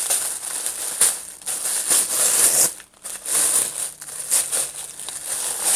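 White wrapping paper crinkling and rustling as a wrapped item is pulled open by hand, in uneven surges with a short pause about three seconds in.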